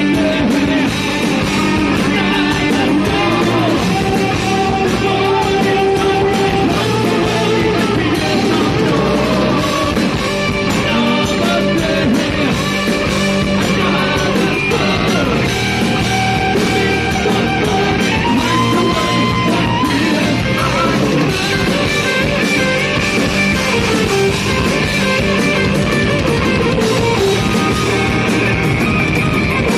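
Heavy metal band playing live: electric guitars, bass and drums, with vocals.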